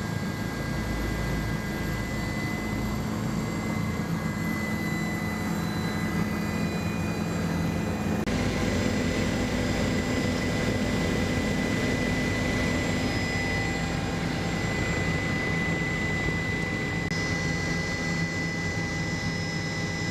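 Helicopter engine and rotor noise heard inside the cabin: a steady high whine over a constant roar, changing abruptly about eight and seventeen seconds in.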